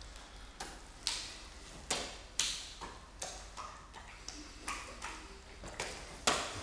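Three wet, blood-soaked hearts being juggled, each slapping into the hands as it is caught: about a dozen sharp slaps, roughly two a second, the loudest near the end.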